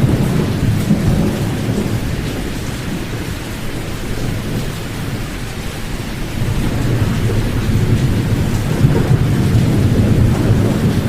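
Pink sleep noise with the high frequencies cut away: a deep, even rush that is mostly low rumble with little hiss. It eases a little in the middle and swells again about six and a half seconds in.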